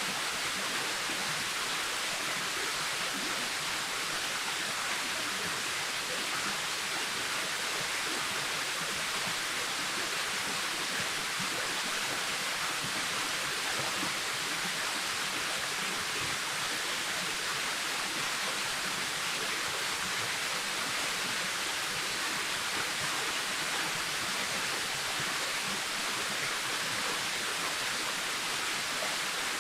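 Waterfall: water falling and splashing in a steady, even rush, mostly in the higher range, with no changes.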